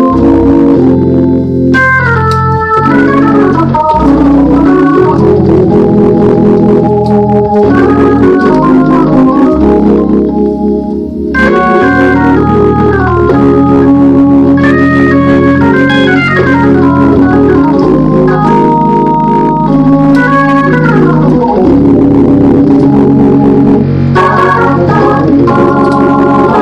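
Hammond console organ played solo: sustained chords over bass notes, broken by several quick runs of notes falling in pitch, with a brief softer passage about eleven seconds in.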